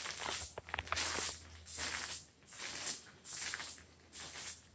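Footsteps across plastic protective sheeting laid over carpet, the plastic crinkling with each step, about six steps in a row. A faint low steady hum sits underneath.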